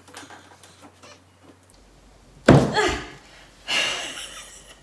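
Faint clicks of a screwdriver working at a car's trunk-lid hinge fitting, then a single sudden loud metallic clunk about two and a half seconds in as the stuck part pops free. A short breathy sound follows about a second later.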